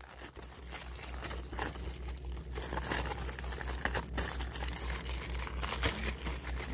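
Plastic packaging, such as DVD shrink wrap, being crinkled and crumpled by hand in a dense, crackly run.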